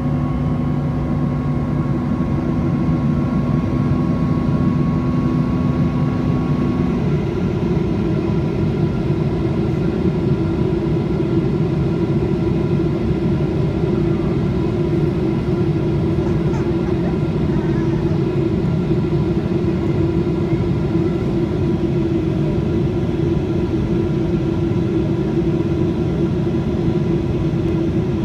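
Boeing 777-300ER cabin noise in flight, heard inside the cabin next to its GE90 engine: a steady rushing drone with a held hum. A couple of higher tones in the drone stop about seven seconds in.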